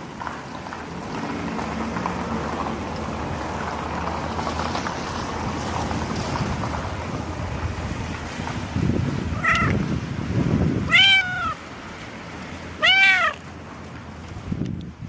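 Calico cat meowing three times in the second half, short cries that rise and fall in pitch, the last two the loudest. Before them, rubbing noise from a hand stroking its fur, mixed with wind on the microphone.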